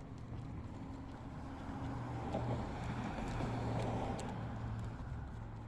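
A motor vehicle passing by: a rushing engine and tyre sound that swells to a peak about three to four seconds in and fades away, over a steady low hum.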